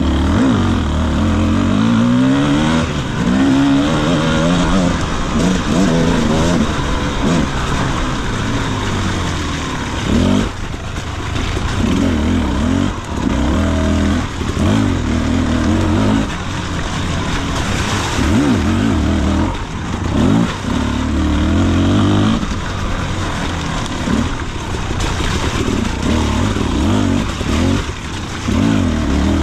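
Beta RR enduro motorcycle engine revving up and down again and again as it is ridden along a muddy trail, the throttle opening in surges and snapping shut every second or two.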